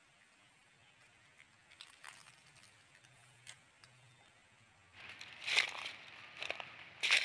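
Footsteps crunching through dry leaf litter and cut brush, starting about five seconds in, with sharp crackles as twigs and dry leaves are stepped on. Before that there are only faint scattered ticks.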